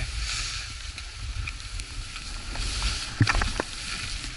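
Skis scraping and sliding over hard, chopped-up snow on a mogul run, the hiss swelling and fading with each turn, over a low wind rumble on the microphone. A few sharp clicks and knocks come about three seconds in.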